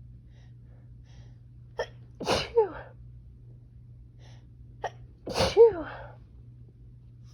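A woman sneezing twice, about three seconds apart, part of an allergy sneezing fit. Each sneeze begins with a short sharp intake, then breaks into a noisy burst that ends in a falling voiced tail.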